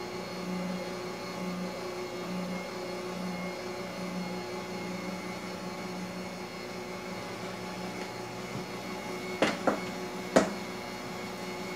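Electric stand mixer running steadily, mashing potatoes in a stainless steel bowl, its motor hum pulsing about once a second. A few sharp knocks near the end.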